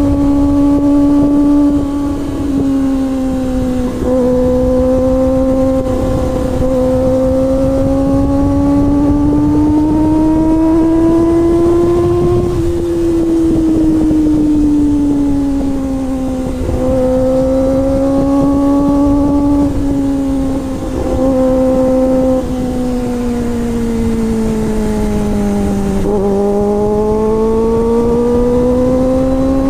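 Kawasaki ZX-25R's 250 cc inline-four running at high revs with a steady high-pitched note. The pitch climbs and sags slowly, with brief breaks about 4 and 17 seconds in. It sinks lowest near the end, then climbs again.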